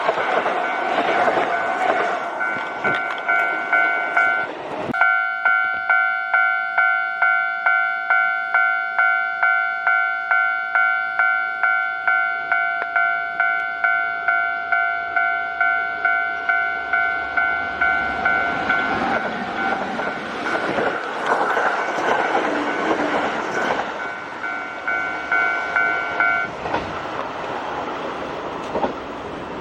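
Japanese level-crossing alarm bell ringing about twice a second as a Kintetsu Osaka Line train passes through the crossing with a rumble and wheel clatter. The bell stops near the end while the train sound carries on.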